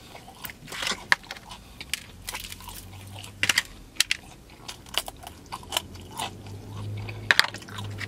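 Close-up chewing of breaded fried vegan chicken, with irregular sharp crunches as the crispy coating is bitten and chewed.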